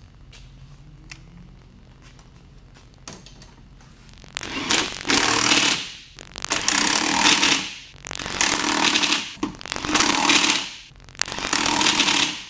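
Pneumatic impact wrench fired in five bursts of about a second each, hammering against a fastener, starting about four seconds in.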